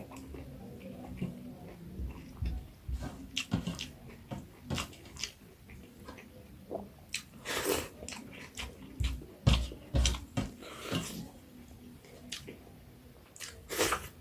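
A person chewing and biting food close to the microphone: irregular wet mouth clicks and smacks.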